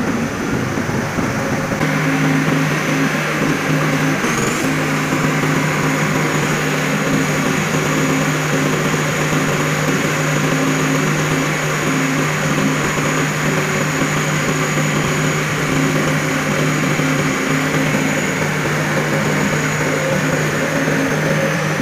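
Steady machine drone: a constant low hum with a thin high whine over a broad noise, holding unchanged throughout.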